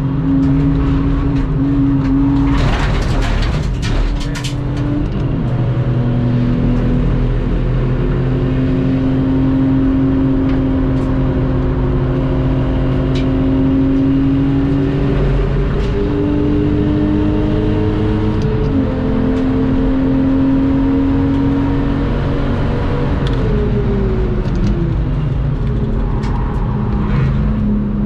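Lexus IS200's straight-six engine pulling on a race-circuit lap, its pitch climbing slowly with a couple of small steps, then dropping away about 23 seconds in as the car slows. A brief rough, rattling noise sits over the engine about three seconds in.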